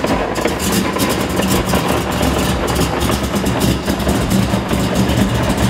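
LS V8 in a Toyota AE86 Corolla idling loudly just after being started, a dense, rapidly pulsing exhaust rumble.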